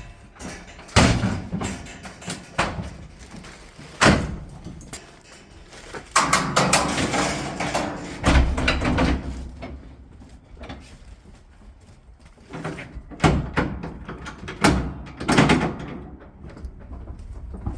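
Metal gates and doors being swung shut, a string of separate bangs and slams with a longer spell of rattling a few seconds in, as when handling lambs at a livestock trailer and pens.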